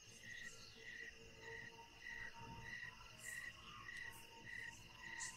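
Crickets chirping faintly: a short chirp repeating evenly about every 0.6 s over a steady high trill.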